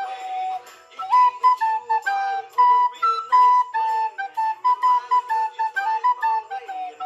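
Soprano recorder playing a quick, jazzy improvised melody in short tongued notes, mostly in its middle range, with a leap up to a high note about three seconds in and a brief pause a little under a second in.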